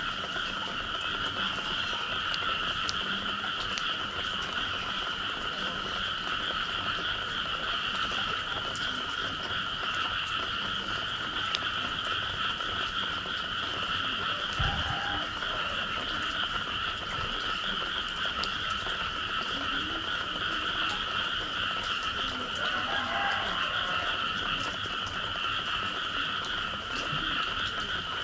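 A dense chorus of frogs calling after rain, a steady unbroken wall of calls in two pitch bands, one higher than the other.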